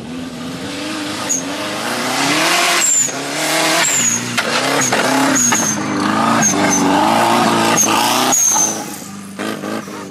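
Off-road race buggy's engine revving hard, its pitch rising and falling repeatedly as it is driven through loose sand and dirt, with the hiss of thrown dirt over it. Short high-pitched chirps are heard several times.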